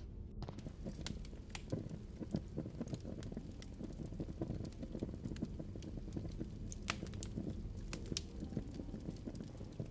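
Irregular crackling and popping over a low, steady rumble, with a few sharper pops near the end.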